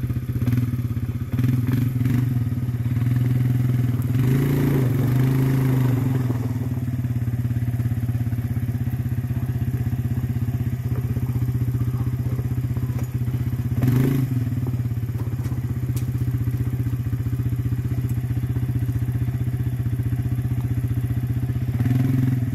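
Four-wheeler ATV engine idling steadily, its note rising briefly about four to six seconds in. A single knock comes about fourteen seconds in.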